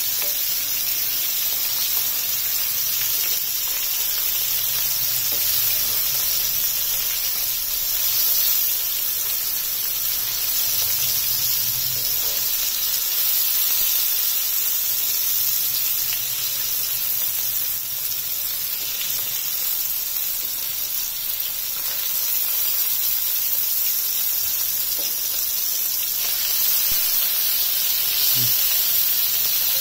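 Masala-coated fish pieces sizzling in oil on a tawa, a steady hiss of frying.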